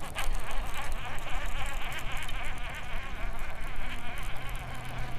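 Baitcasting reel cranked fast on a retrieve, its gears giving a steady buzzing whir, over a low rumble. A low steady hum comes in near the end.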